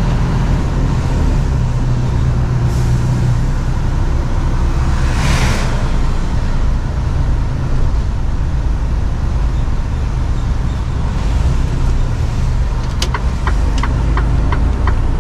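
Mercedes Actros truck engine running steadily under way, heard from inside the cab. There is a short hiss of air about five seconds in. Near the end the turn indicator starts ticking, about two to three ticks a second.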